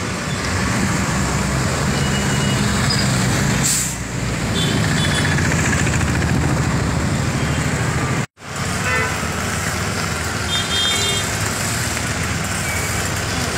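City road traffic: cars, motor scooters and auto-rickshaws passing with a steady engine and tyre noise, and a few short horn toots. The sound drops out for a moment about eight seconds in.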